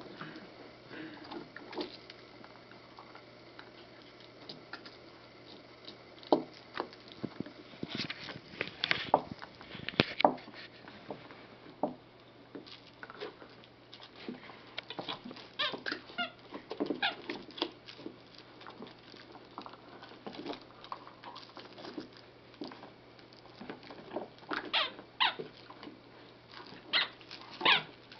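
Miniature dachshund rummaging among toys inside a toy box, making irregular scratching, rustling and knocking sounds that come in bursts.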